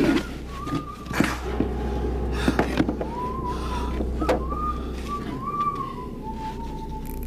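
A person whistling a slow, wavering tune, with a few sharp metallic clicks from a floor safe's handle and dial being worked.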